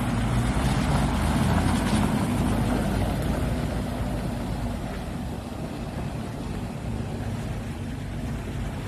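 Willys Jeep's four-cylinder engine running steadily as the Jeep drives along the banking, loudest in the first few seconds and then fading as it draws away.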